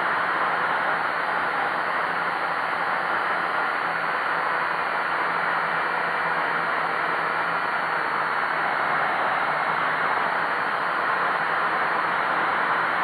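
HL 6036 quadcopter's motors and propellers running steadily, picked up by the action camera mounted on it: an even hiss with a faint low hum underneath.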